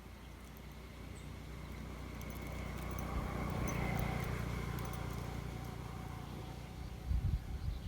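A motor passing by: its steady hum grows louder toward the middle and then fades away. A few knocks come near the end.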